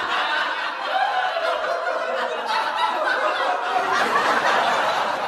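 Audience laughter: a crowd of many people laughing together at once, holding at a steady level.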